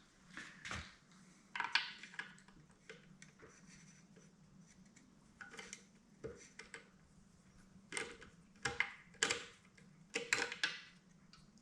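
Irregular metal clinks and short scrapes of hand tools working on a corroded garbage disposal as it is being taken apart.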